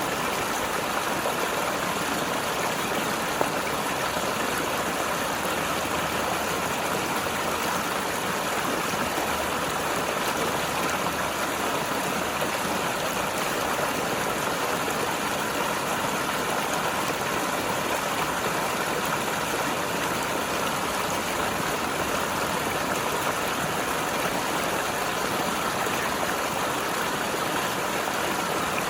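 Mountain river flowing and tumbling over rocks, a steady rushing and gurgling of water that stays even throughout.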